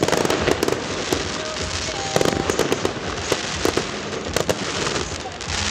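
Aerial firework shells bursting one after another: many sharp bangs over a dense crackle.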